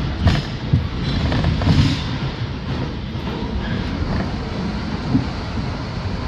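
Bombardier R62A New York City Subway car running along the track, heard from inside the car: a steady low rumble with a few sharp wheel knocks over rail joints in the first two seconds.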